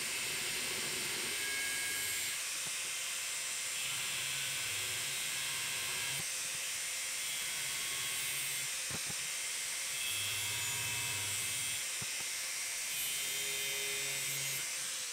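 Angle grinder running under load, its disc cutting into a flat steel bar with a steady, high hiss.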